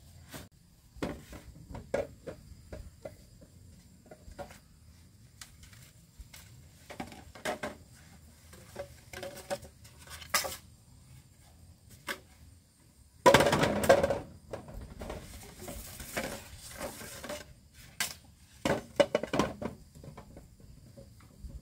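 Scattered knocks and clatter of pots and utensils being handled, with a louder burst of noise about 13 seconds in and a softer hiss after it.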